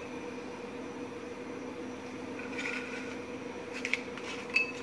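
Quiet room tone with a steady low hum, and a few faint soft clicks and rubs of handling in the second half.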